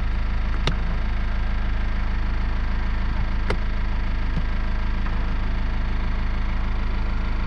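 Peugeot 407 SW engine idling steadily, with a few sharp clicks from the electric mirror adjustment switch being pressed.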